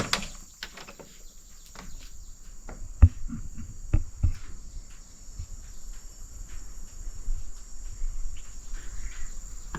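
Insects keeping up a steady high-pitched drone, with scattered light knocks and two louder low thumps about a second apart, near the middle.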